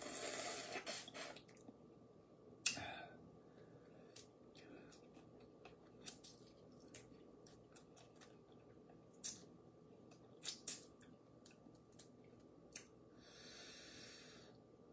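Boiled crawfish being eaten close to the microphone: shells cracking and snapping in scattered sharp clicks, with wet sucking and chewing. A single sharp crack about three seconds in is the loudest, and longer hissing sucks come at the start and near the end.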